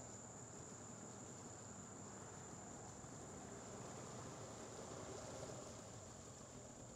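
Faint, steady high-pitched insect chorus of crickets or katydids, over a low rumble from an outboard motor.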